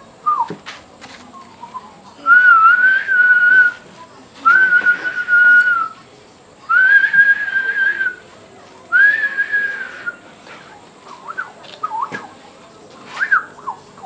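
A man whistling four long held notes, each a little over a second with short gaps between, the pitch wavering slightly as each note starts, followed by a few short sliding notes near the end.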